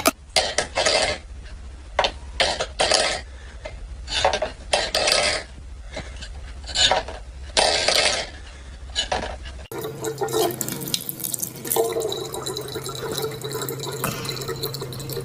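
A stainless steel bowl clattering and scraping in short irregular bursts on a wooden floor as a cat paws at it. About ten seconds in it changes abruptly to a tap running a steady stream of water into a plastic bottle.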